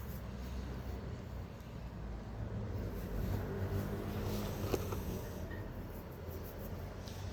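Low, steady engine rumble of a motor vehicle, with one sharp click a little after halfway.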